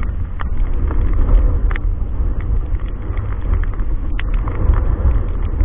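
Wind buffeting the camera's microphone: a loud, unsteady low rumble with a hiss above it and scattered short clicks.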